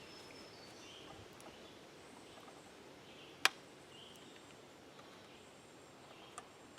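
Quiet woodland background with faint, scattered bird chirps, and a single sharp click about three and a half seconds in.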